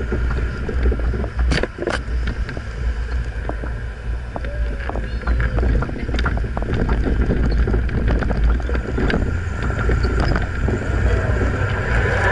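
Lifted Suzuki Sidekick driving over packed snow: its engine running under a steady low rumble, with frequent knocks and rattles from the body and suspension.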